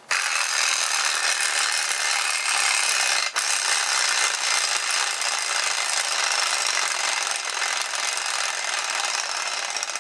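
3D-printed plastic clockwork motor running down under its wound spring, its gear train making a steady, dense whirr that starts abruptly as it is released. One sharp click about three seconds in, and the whirr eases slightly near the end.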